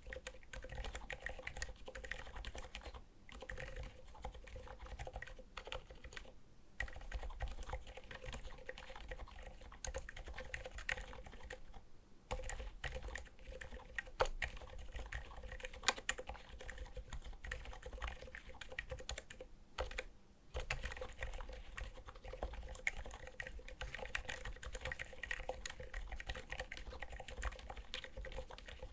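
Continuous typing on a Skog Reboot mechanical keyboard with Seriko silent linear switches: a dense run of muted keystroke clicks, broken by a few short pauses, over a faint steady hum.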